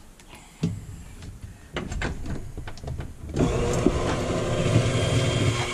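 Rustling and a few light knocks as an appliance cord is handled. About three seconds in, an electric hand mixer's motor switches on and runs with a steady whine.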